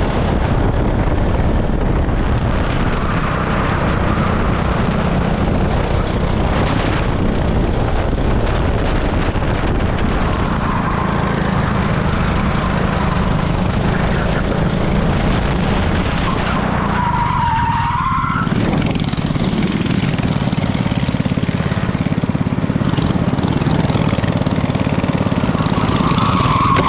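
18 hp super kart's engine running hard at racing speed, heard from onboard, with tyres squealing several times through the corners. About eighteen seconds in, the engine note drops briefly while a tyre squeals.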